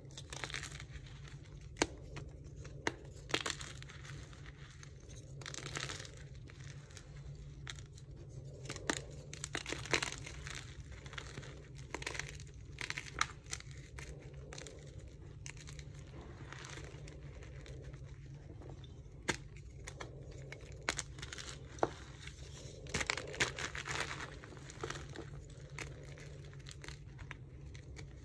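Dyed gym chalk blocks crumbled and crushed between bare fingers: irregular crisp crackles and snaps with powdery rustling as the pieces break apart.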